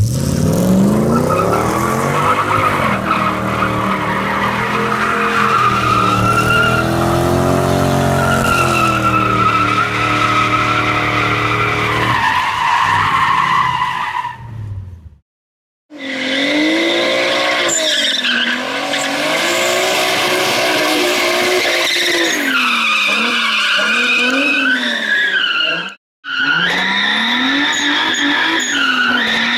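Toyota 1UZ-FE V8 in a GAZ-24 Volga, revving hard up and down through a tyre-smoking burnout and drift, with tyres squealing. After a brief silence about halfway, another car's engine revs up and down, heard from inside the cabin, with tyres squealing.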